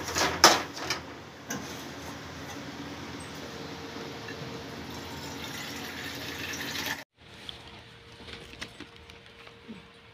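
A few sharp clanks of kitchen utensils, then a steady hiss at the kitchen stove that cuts off abruptly about seven seconds in.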